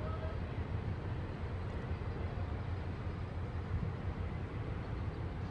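Steady low outdoor rumble with no distinct events: the open-air background noise of a port area.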